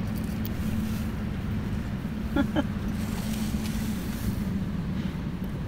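A steady, low engine drone that holds one pitch throughout.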